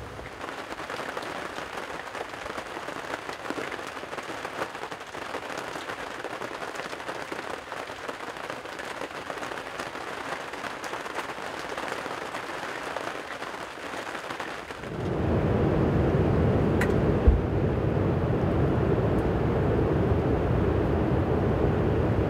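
Rain pattering steadily. About fifteen seconds in it gives way suddenly to a louder, steady low rumble, with a single sharp knock shortly after.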